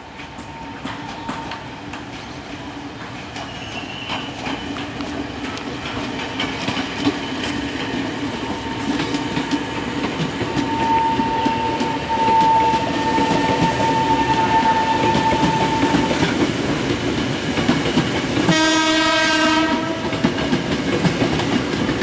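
Electric commuter trains running over junction points, wheels clattering and the running noise growing steadily louder. A steady high tone holds for several seconds midway. Near the end a train horn sounds one blast of about a second and a half.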